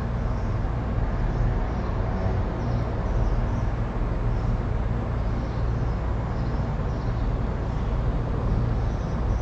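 Steady low rumble with a constant hiss of background noise, unchanging throughout.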